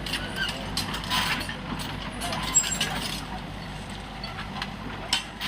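Komatsu mini excavator running, a steady low engine hum under a series of sharp clicks and knocks, the loudest about two and a half seconds in and another near the end.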